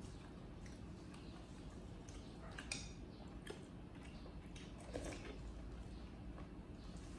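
Faint, irregular wet smacks and small clicks of a monkey eating porridge, with two slightly sharper clicks partway through.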